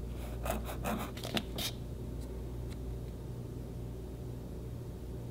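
A flexible fountain pen nib scratching across paper in a handful of short, quick strokes over the first second and a half or so, then only a low steady hum. The nib has lost its ink flow after being pressed too hard, which the writer puts down to pushing it too much.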